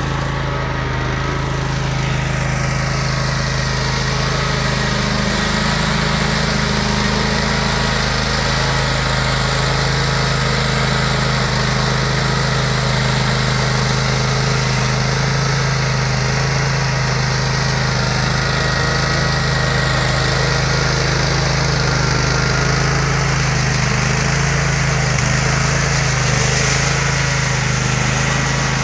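Husqvarna Rider 17 AWD ride-on's engine running steadily under load, driving a front-mounted rotary sweeper brush that sweeps snow.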